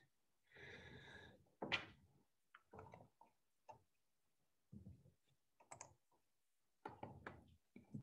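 Near silence broken by about a dozen faint, scattered clicks and soft knocks, each cut short.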